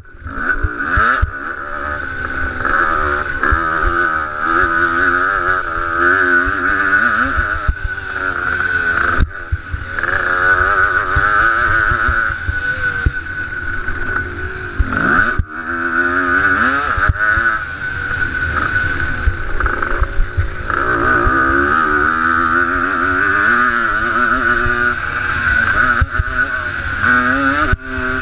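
A motocross dirt bike engine revving up and down repeatedly as the bike is ridden hard, heard from a helmet-mounted camera. The sound drops off briefly a few times.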